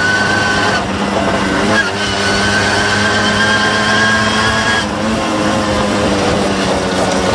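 Tomos 14M moped's small two-stroke engine running steadily under way, with a brief dip in engine sound about a second in and again about five seconds in.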